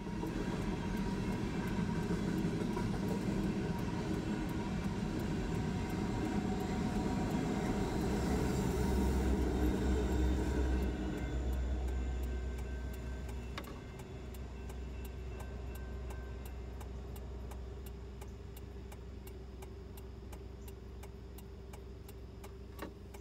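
Empty coal train of hopper cars rolling past a grade crossing, wheels rumbling on the rails, with a deep low hum near the middle; the rumble fades about halfway through as the train clears. A crossing signal's bell rings in steady, even strokes while the lights flash.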